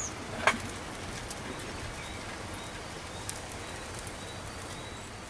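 Quiet steady hiss of a small wood fire in a twig stove under a frying pan, with faint scattered crackles and a single knock of the wooden spatula against the pan about half a second in.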